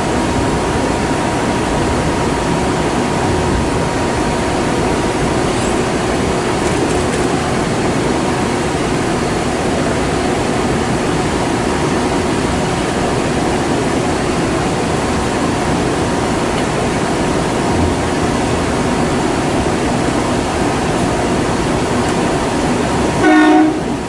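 Kintetsu 'Raku' train running steadily, an even rumble of wheels on rail with a faint steady whine. Near the end a short horn blast sounds once.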